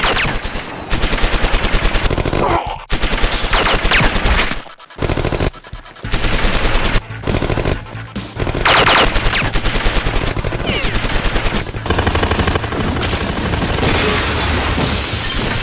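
Dubbed sound-effect automatic gunfire: long runs of rapid shots from machine guns, with a few short breaks in the first six seconds.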